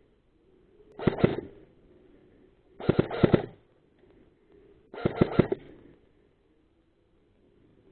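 Airsoft gun firing three short bursts of a few rapid shots each, about two seconds apart.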